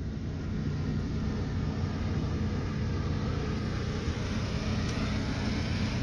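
Wind buffeting the phone's built-in microphone: a steady low rumble with a faint hiss above it.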